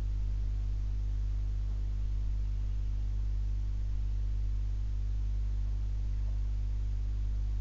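Steady low electrical hum with a ladder of evenly spaced overtones, unchanging throughout, over the quiet of a small room.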